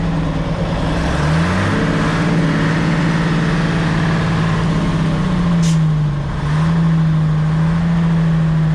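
Nissan CK31L truck's diesel engine running in the cab, its speed rising about a second in and holding, then dropping briefly past the middle before picking up again.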